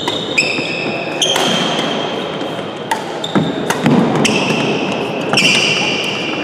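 Badminton rally: court shoes squeaking on the sports-hall floor several times, with sharp clicks of rackets striking the shuttlecock, over a steady background murmur of the hall.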